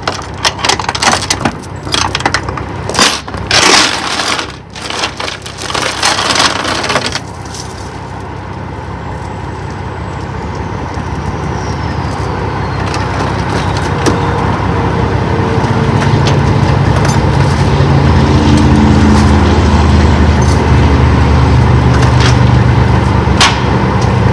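Load chains clanking and rattling against a flatbed trailer for about the first seven seconds, then a heavy truck engine rumbling, growing steadily louder and holding loud through the end.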